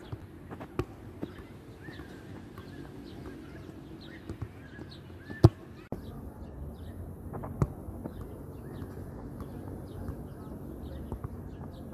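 Football thudding as it is touched and bounces on artificial turf: a few sharp single thuds a couple of seconds apart, the loudest about halfway through. Birds chirp in the background during the first half.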